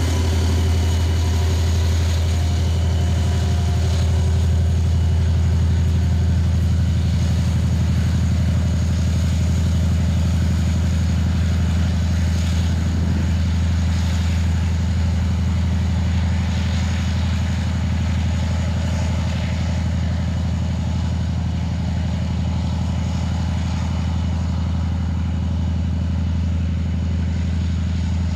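TE10-series diesel locomotives' 10D100 two-stroke opposed-piston engines working, heard as a steady low drone that slowly fades as the train draws away.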